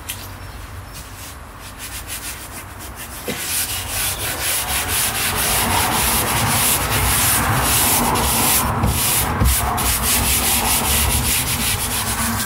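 Hands rubbing and pressing freshly glued carpet lining onto a van's inner panel: quick scratchy rubbing strokes that get louder about three seconds in.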